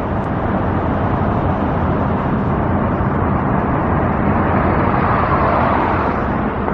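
Loud, steady outdoor noise with a low rumble, swelling slightly about five seconds in.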